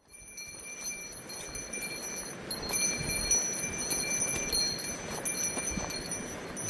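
A small bell jingling over and over, its ringing coming and going every second or so over a steady rushing background.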